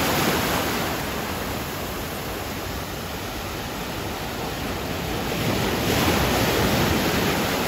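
Sea surf washing in and wind, a steady rush that eases a little and then swells again about six seconds in.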